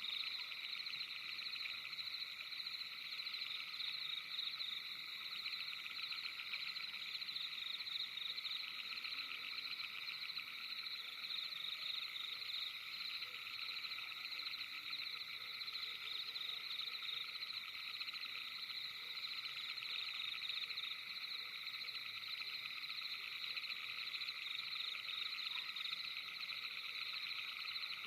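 A dense, steady chorus of frogs at night: many rapidly pulsing trills overlapping into one continuous high-pitched chorus.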